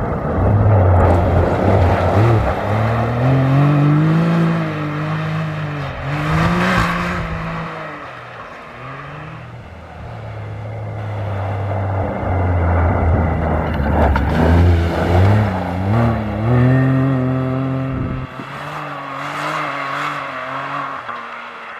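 Rally-raid vehicle engines revving hard through gear changes as they drive past, one after another, with the pitch climbing and dropping at each shift. A loud pass comes early, another builds up past the middle, and a third vehicle is heard near the end.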